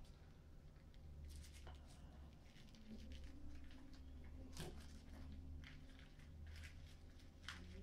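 Faint rustling and soft clicking of a bamboo sushi rolling mat being pressed and rolled by hand, over a low steady hum.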